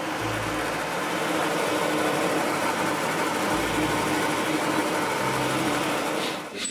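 Drill press and the vacuum on its dust-extraction pipe running steadily while holes are bored in a wooden block, a dense even whoosh with a low hum; it stops abruptly near the end.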